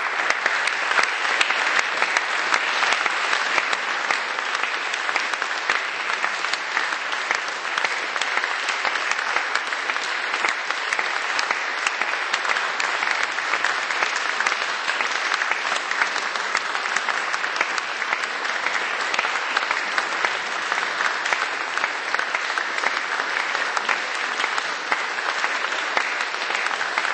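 Audience applauding steadily, a dense even clapping that holds its level throughout.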